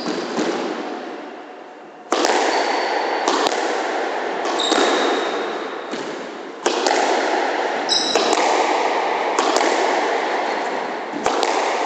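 Squash rally starting about two seconds in: a sharp smack of racket on ball or ball off the wall every one to two seconds, each ringing out in the court's echo, with short high squeaks of shoes on the wooden floor.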